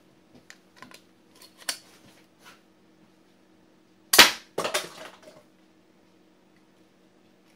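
Plastic toy revolver: a few light plastic clicks as it is handled, then it fires once with a loud, sharp crack about four seconds in, followed by a brief rattling clatter.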